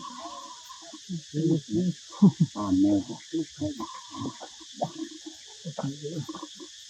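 Steady chorus of crickets, with louder, irregular low-pitched vocal sounds that come and go over it from about a second in.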